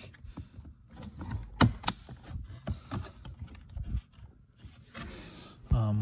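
Plastic wiring-harness connectors being pushed into the back of a master power-window switch, with a series of sharp clicks as they latch into place over handling rustle; the two loudest clicks come close together about one and a half to two seconds in.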